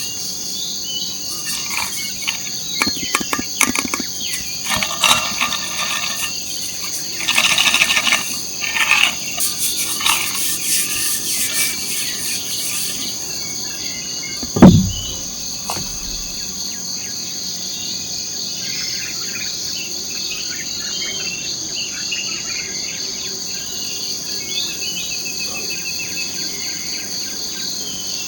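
Tropical forest insects keep up a steady high-pitched drone, with bursts of rapid, pulsing calls over it in the first half. About halfway through comes a single short, loud sound that falls quickly in pitch.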